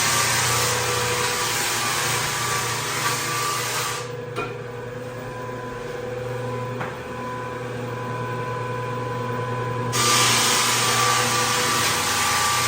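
Electric drum floor sander running over a wooden floor, stripping off the old finish: a steady motor hum under a gritty sanding hiss. The hiss drops away for several seconds in the middle and comes back near the end.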